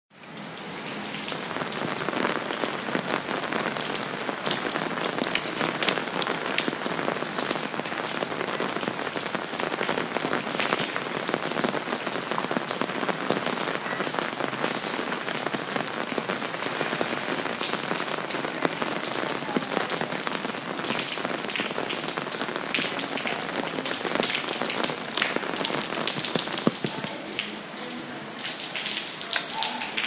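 Rain falling on an umbrella canopy and splashing onto the ground: a dense, steady hiss of many fine drop hits. It fades in over the first second.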